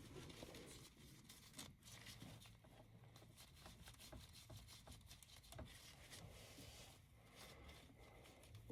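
Near silence: faint scattered clicks and handling noise over a faint low hum.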